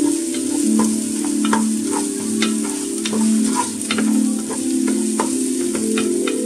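Ginger and garlic paste sizzling in hot oil in a non-stick pot while a wooden spoon stirs it, scraping and knocking against the pot with irregular sharp clicks. Steady low tones, changing pitch every so often, run underneath.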